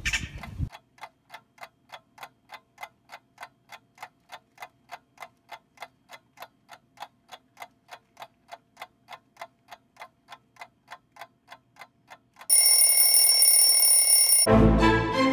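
A clock ticking, a little over three ticks a second, laid over the picture as a sound effect. Near the end it gives way to about two seconds of loud, steady alarm-clock ringing, which cuts off suddenly as music starts.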